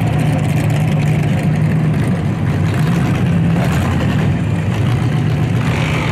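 An engine idling steadily nearby, a loud, even low hum.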